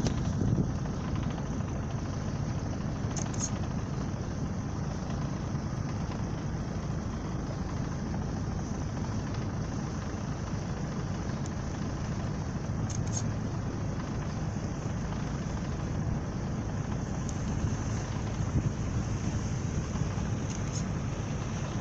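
Cruise boat's engine running steadily, a low rumble.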